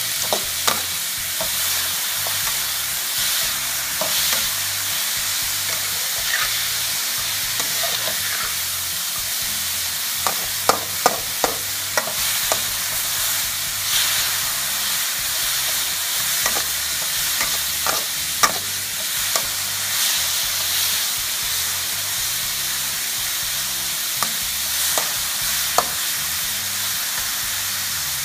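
Sliced pork sausage, chopped long beans and diced carrots sizzling steadily in oil in a stainless steel wok while being stir-fried with a metal spatula, which clinks and scrapes sharply against the pan now and then, most often a little before the middle.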